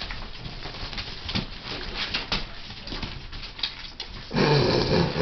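Border terrier and her young puppies moving about on a hard floor: a run of small clicks, taps and scuffles. About four seconds in comes a loud, low dog vocal sound lasting just under a second.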